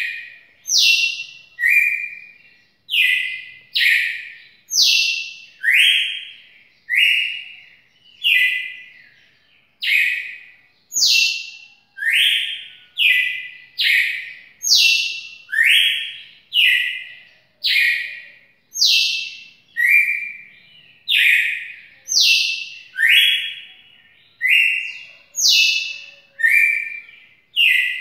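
Captive red-cowled cardinal (galo-de-campina) singing a series of loud, clear whistled notes, about one a second, alternating between higher and lower pitches.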